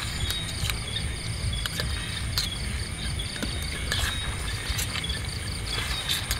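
Crickets and other night insects chirping in a steady, pulsing chorus, with scattered sharp crackles from a wood campfire.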